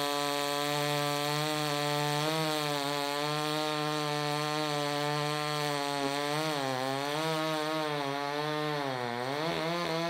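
A Proyama 68cc two-stroke chainsaw runs at full throttle cutting through a thick log. Its engine pitch sags twice under load, around the middle and again near the end, then picks back up.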